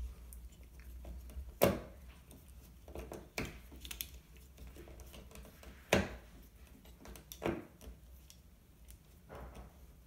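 Scattered sharp clicks and knocks of a screwdriver and small metal door hardware being handled while the striker plate's screws are taken out, five or so over the stretch.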